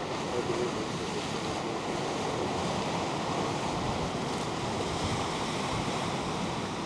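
Steady rushing of ocean surf and wind outdoors, with no distinct events.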